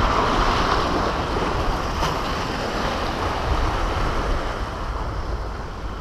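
Sea surf washing and breaking against the concrete blocks at the foot of a pier, a steady rushing noise, with wind buffeting the microphone.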